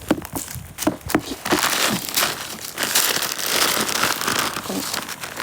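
Plastic food packaging crinkling and rustling as it is handled and opened, a dense run of crackles and clicks that is thickest in the middle.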